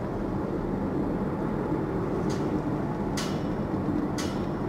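Steady low engine rumble from a container ship and its escorting harbour tug passing close on the river. Three short, higher hissing sounds come about two, three and four seconds in.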